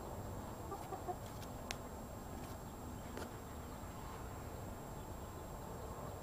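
A chicken giving a few short, soft clucks about a second in, followed by a couple of faint clicks.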